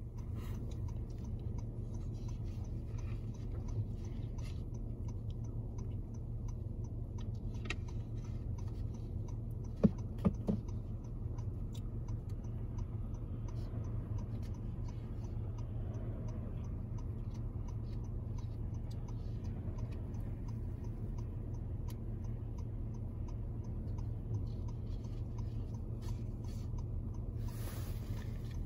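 Steady low rumble of distant vehicles, road traffic and an approaching diesel freight train, with a few sharp knocks about ten seconds in and faint regular ticking throughout.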